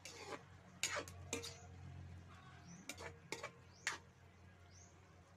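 A metal ladle stirring vegetables in a large aluminium wok, knocking and scraping against the pan in a handful of sharp clanks, about a second in and again around three to four seconds in.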